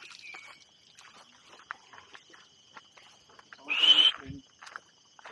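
Footsteps crunching on a stony dirt path over a steady high insect drone, with one short, loud animal call about four seconds in.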